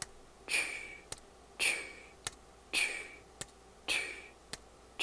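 A finger tapping a microphone about once a second. Each sharp tap is followed about half a second later by a short hissy sound made with the voice, giving a steady alternating rhythm of five taps and four voice sounds.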